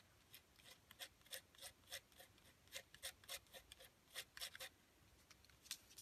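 Palette knife scraping paste through a plastic Punchinella stencil onto card: a quiet run of short scrapes, several each second.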